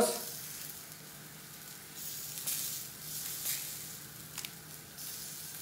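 Beef burger patty sizzling steadily in a cast-iron pan. Crisp rustling of lettuce leaves being torn and laid on a bun comes in between about two and three and a half seconds in.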